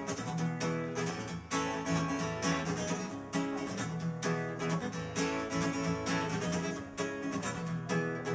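Acoustic guitar strummed in a steady rhythm: the instrumental introduction of a song, before any singing.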